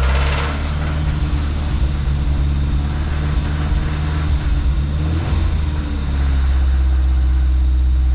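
Mazda B2000's four-cylinder engine running just after starting, its speed wavering about five seconds in and then settling into a steady idle. It has a vibration or knock that the owner thinks is a rod knock.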